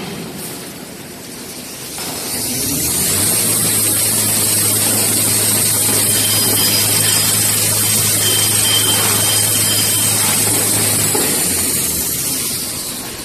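Toilet paper rewinding machine running up to speed with a rising whine, running steadily with a low hum and a hiss, then winding down near the end.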